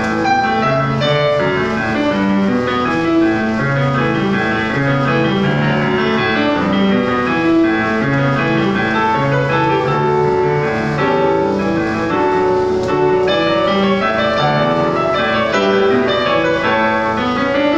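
Piano music: a steady stream of notes played at an even pace, without pause.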